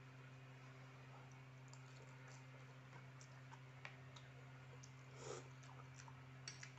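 Faint eating sounds over a steady low hum: scattered small clicks of chewing instant fried noodles and a fork working in a plastic bowl, with one slightly longer, louder noise about five seconds in.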